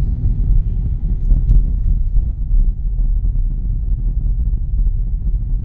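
Steady low rumble of a car in motion, heard from inside the cabin: road and engine noise.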